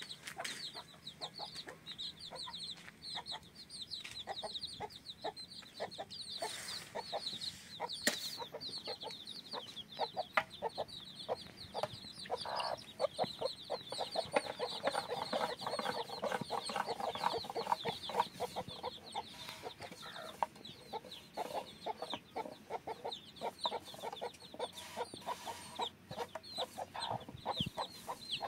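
Chickens clucking, with rapid high chirps all the way through; the clucking thickens about halfway in.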